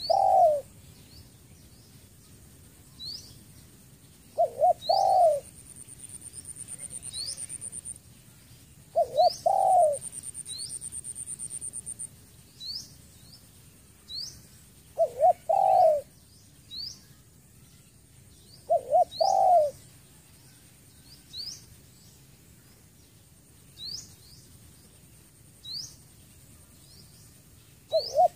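Spotted dove cooing: a short low phrase of a few coos, given six times at intervals of about four to five seconds. Thin, high, rising chirps from a small bird run between the phrases, and two drawn-out high buzzes come in the middle.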